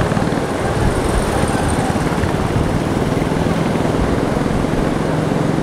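Strong sea wind buffeting the microphone in a loud, steady rumble, over the noise of rough surf breaking.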